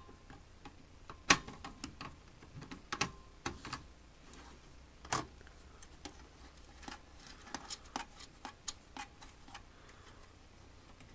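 Irregular light metallic clicks and taps of nippers working a brass coaxial cable connector loose from a cable box's steel back panel, with two louder clicks, about a second in and about five seconds in.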